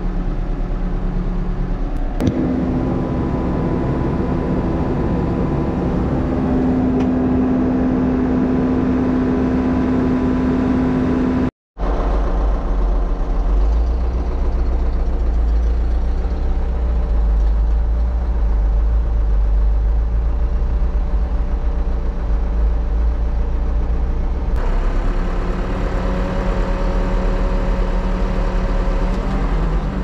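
Backhoe loader's diesel engine running steadily, heard from inside the cab while the machine works. For the first third a strong steady hum is added to the engine note. The sound drops out briefly about a third of the way in.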